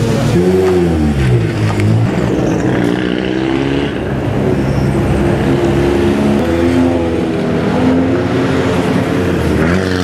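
Race car engines running at low revs in the pit lane, one blipping its revs so the pitch rises and falls between about half a second and two seconds in. The cars are Renault Clio Cup touring cars, and their engines then hold a steady, slightly wavering note as they roll slowly past.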